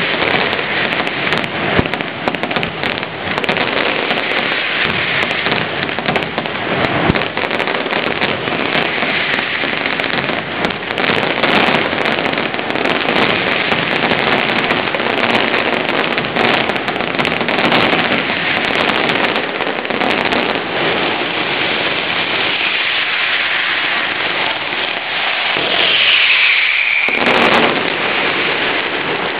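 Mascletà firecrackers going off in a dense, unbroken crackle of countless rapid bangs that blur together like heavy rain. Near the end a shrill sound sliding down in pitch rises over the crackle and breaks off abruptly.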